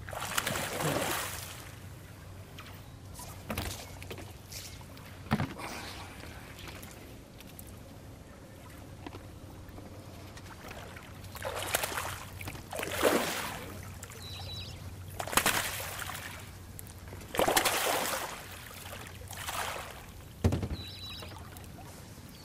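A hooked redfish (red drum) thrashing at the water's surface beside a boat: a string of separate splashes a second or several apart, thickest in the second half.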